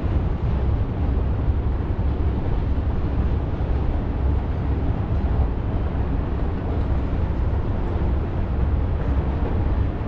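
Long freight train of tank cars rolling past, a steady low rumble that neither rises nor fades, mixed with wind buffeting the microphone.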